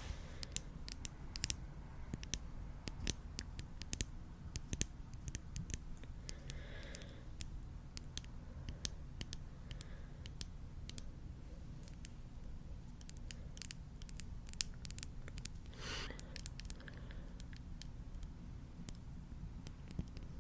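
Close-miked ASMR trigger sounds: irregular, crisp clicks and crackles, with a couple of brief soft scratchy swishes, one about two-thirds of the way through.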